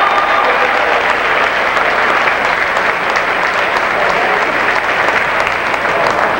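A large crowd applauding steadily: a dense patter of many hands clapping at once.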